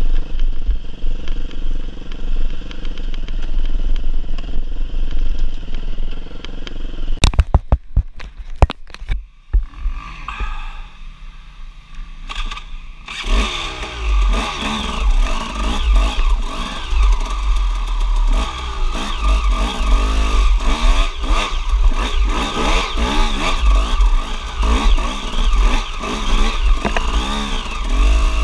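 Enduro dirt bike engine running on a trail ride, with a cluster of sharp knocks about seven seconds in. After a quieter stretch the bike's engine comes in loud about halfway through, revving up and down repeatedly as it climbs a steep rocky track, over a heavy low rumble of wind and jolting on the microphone.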